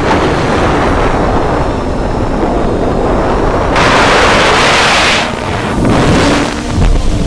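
Wind rushing over the onboard camera's microphone on a TBS quadcopter in flight, with the drone's motors running under it. A louder, hissier gust comes about four seconds in and lasts about a second and a half, and a shorter one follows near the end.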